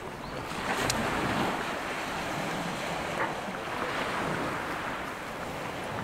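Small waves breaking and washing over a shingle beach, with wind on the microphone; the wash swells about a second in.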